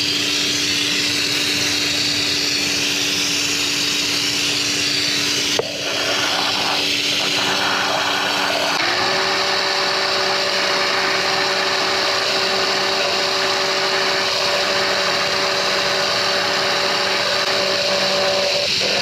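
Power washer running steadily, its motor giving a constant hum while the water jet hisses against the Jeep. There is a brief dip near six seconds, and about nine seconds in the hum steps up to a higher pitch.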